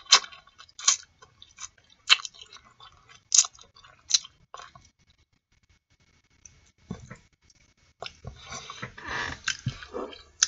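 Close-up mouth sounds of eating boiled artichoke leaves: wet lip smacks and clicks as a leaf is pulled through the teeth and chewed. There is a quiet pause about halfway, then a longer, busier stretch of mouth noise near the end.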